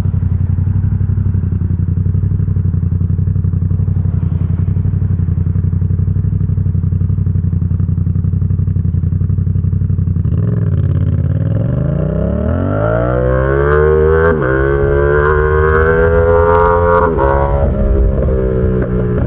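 Yamaha XSR700's 689 cc parallel-twin engine through an SC Project exhaust, running steadily at low revs, then accelerating hard about ten seconds in, its pitch climbing steeply with a short break in the climb, and dropping back near the end before running on steadily.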